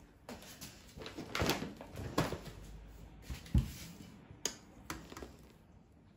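A stainless steel mixing bowl of whipped cream being handled and brought over, with a series of light knocks and clunks and some rustling. The strongest is a dull thump about three and a half seconds in, followed by a sharp click.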